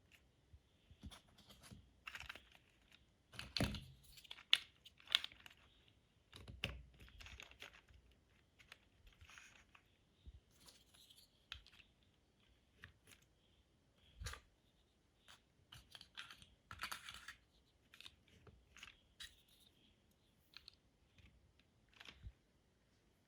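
Plastic LEGO bricks being handled and pressed together: irregular small clicks and rustles, with a cluster of louder clicks about four to five seconds in.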